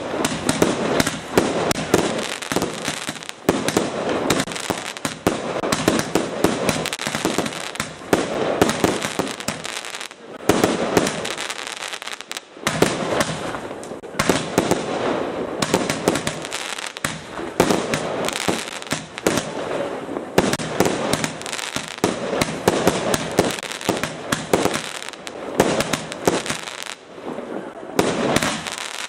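A fireworks display firing a dense barrage of rapid bangs and crackles, with two brief dips near the middle.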